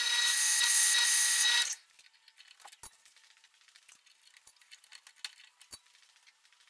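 Drill press running with a steady whine while drilling a hole through a steel knife blank; the sound cuts off abruptly about two seconds in. Then only faint small metallic clicks and taps as the drill bit is handled and changed in the chuck.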